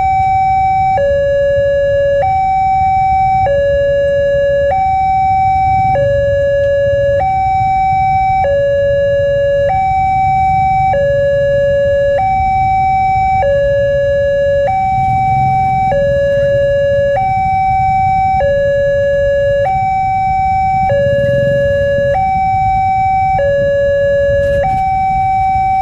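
Electronic two-tone railway level-crossing warning alarm, alternating steadily between a higher and a lower tone about once a second.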